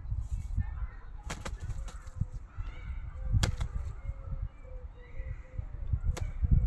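Common wood pigeons flapping, with a few sharp wing claps over a low rumble.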